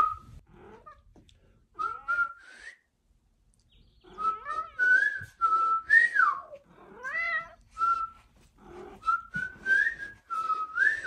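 A person whistling in short phrases of sliding, rising and falling notes, with pauses between, to call a tabby cat. The cat answers with meows now and then between the whistles.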